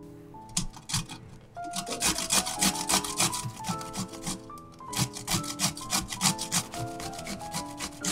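Pickled cucumber grated on a cone-shaped stainless steel grater: quick repeated rasping strokes, several a second, with a brief lull a little past halfway. Soft background music with piano-like notes underneath.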